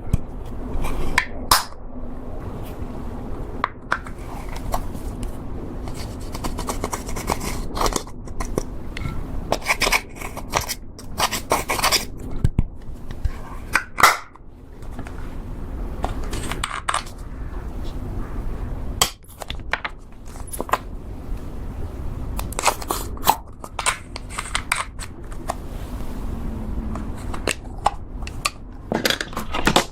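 Slime being mixed and squished with makeup worked into it: irregular sticky clicks, crackles and scrapes, with brief pauses now and then.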